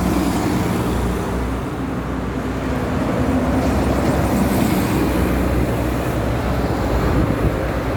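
Buses passing on the road: a steady engine drone with tyre and road noise.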